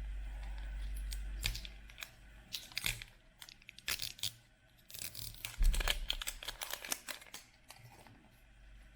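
Packaging of a Bops N Tops surprise ball being torn open and crinkled by hand: irregular crackles and tearing rustles, with a low handling rumble in the first couple of seconds.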